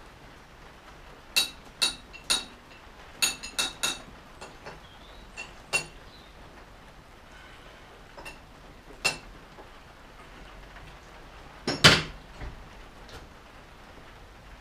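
Sharp metal-on-metal clinks and taps of steel tools and parts on a metal lathe's carriage and tool post, during setup for thread cutting. There is a quick run of short ringing clinks in the first few seconds, a few scattered ones after, and one louder clank about twelve seconds in.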